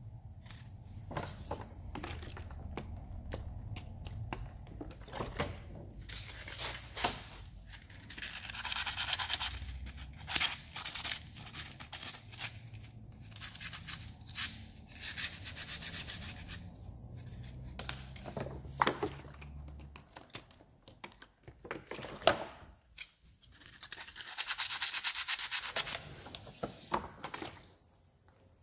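Hand scraping and rubbing on a scooter's metal drum-brake backing plate, in uneven bursts of scratchy hiss, with scattered sharp clicks of metal.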